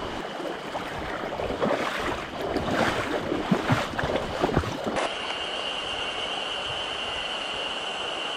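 Mountain stream water rushing, with irregular splashing and knocks over the first five seconds. An abrupt cut about five seconds in changes it to a steadier rush of running water with a thin, steady high tone over it.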